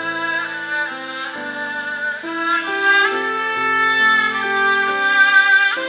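Haegeum ensemble, Korean two-string bowed fiddles, playing a slow melody with slides between notes. The melody sits above lower held chords that change about every second.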